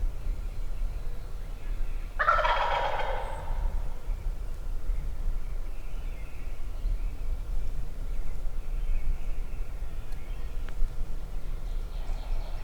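Wild turkey gobbler gobbling once, loud and close, about two seconds in, with fainter calls later.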